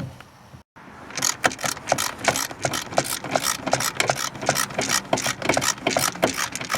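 Quick, irregular clicking and rattling from a screwdriver working out the single screw that holds a Toyota Sienna's inner door panel. The clicking starts about a second in.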